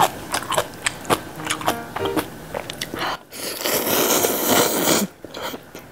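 Eating instant ramyun: short clicks and chewing noises as noodles are lifted with chopsticks from a metal pot, then a long, loud slurp of noodles about halfway through that stops suddenly near the end.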